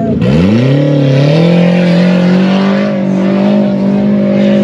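Off-road 4x4's engine revving hard: the revs dip right at the start, climb over about a second, then hold steady and high.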